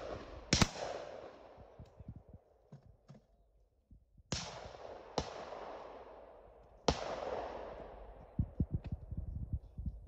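Shotgun shots at sporting clays: one about half a second in, then three more between about four and seven seconds in, each followed by a long echoing tail. Light clicks and knocks near the end.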